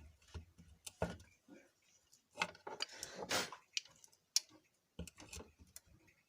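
Irregular clicks and knocks of a mixer grinder's motor and plastic body parts being handled as the motor is set down onto its base and rubber cushion, with a short scraping rustle about three seconds in.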